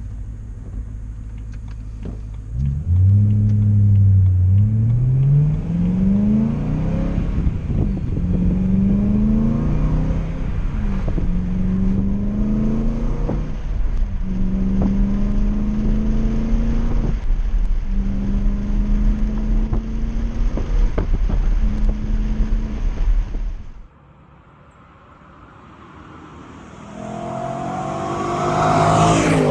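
BMW E92 M3's V8 with an Autobahn Exotics aftermarket exhaust, heard from inside the car with strong wind noise on the microphone. It accelerates, the note rising and dropping several times as it shifts up, then holds a steady note. Near the end, after a cut, the car is heard from outside, coming closer and growing louder as it passes.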